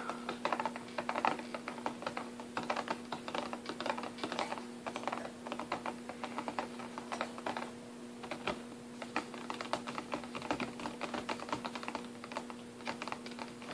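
Fingers tapping quickly and irregularly on a cardboard gift box with a clear plastic window, a dense run of light taps.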